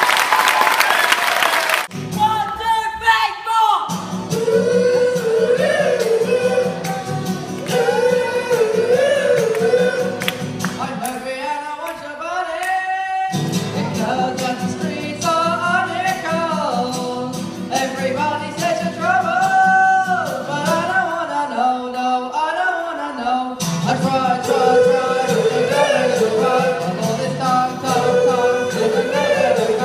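A live school band: a group of voices singing together over steady instrumental backing. It follows a short burst of applause that cuts off about two seconds in, and the backing drops out briefly a few times.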